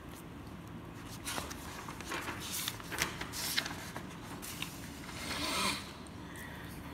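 Light scraping and rustling of a hand and paper over a notebook page, with scattered soft clicks and a longer rustle near the end.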